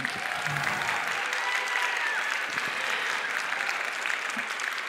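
Audience applauding, steady throughout.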